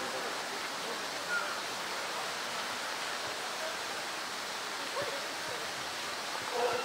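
Steady rush of flowing water, with a couple of faint, brief voices in the distance.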